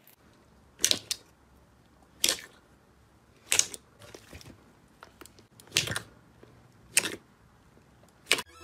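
Slime being pressed and squeezed by hand, making short crackly, clicking squelches, about six of them at uneven intervals of a second or so.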